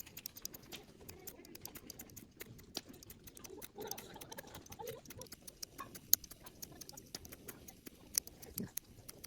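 Wood campfire crackling, with irregular sharp pops and snaps scattered throughout.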